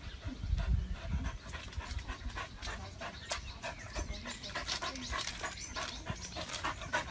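A dog panting hard in rapid short breaths, with a few low thumps in the first second.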